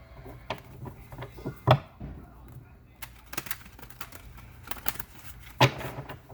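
Tarot cards being shuffled and handled: a run of irregular sharp snaps and taps, with two louder slaps, one about a second and a half in and one near the end.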